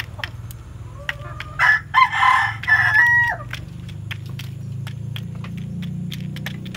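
A rooster crows once, a call of a little under two seconds that drops off at the end, over the quick, irregular clicking of chickens pecking feed pellets from a trough.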